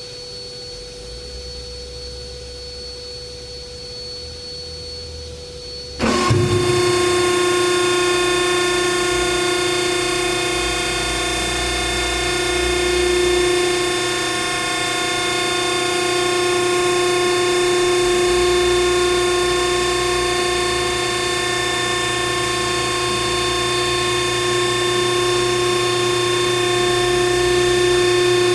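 PTR 7200 HD-2 vertical baler's hydraulic power unit: a faint steady hum, then about six seconds in the electric motor and pump start with a sudden jump in level and run on with a steady, even whine.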